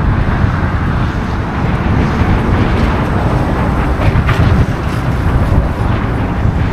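Wind buffeting the microphone: a loud, steady, gusting rumble.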